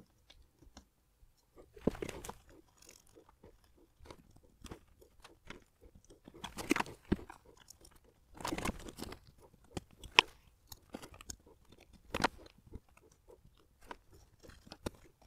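Sticky adhesive pad being scrubbed and scraped off a smartwatch circuit board with a cotton swab. It comes as short, irregular scrapes and crackles, the loudest a little under 7 s and about 10 s in.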